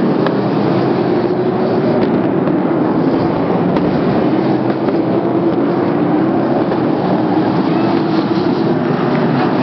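Sprint car engines running at racing speed, a loud steady drone whose pitch wavers slightly as the cars lap the track.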